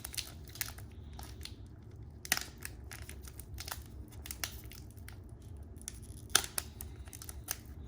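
Foil wrapper of a Pokémon card booster pack crinkling and crackling under the fingers as someone struggles to tear it open, with sharper crackles about two seconds in and about six seconds in.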